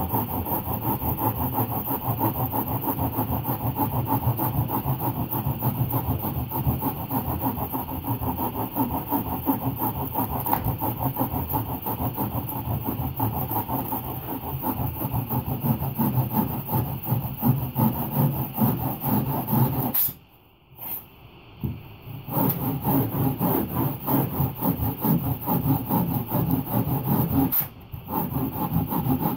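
Blue foam being shaped by hand with rapid scraping and rasping strokes. The sound is continuous and choppy, stops for about two seconds around two-thirds of the way through, and dips briefly near the end.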